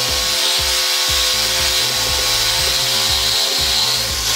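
A reciprocating saw (Sawzall) fitted with a metal-cutting blade, running steadily at full speed and cutting through a car's engine motor mount bolt. The bolt spins freely in its mount and cannot be unscrewed.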